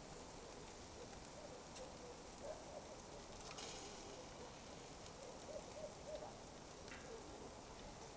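Smouldering coals crackling faintly over a low hiss, with a few sharp pops. There are also several short, soft pitched notes, loudest a couple of seconds in and again around the middle-to-late part.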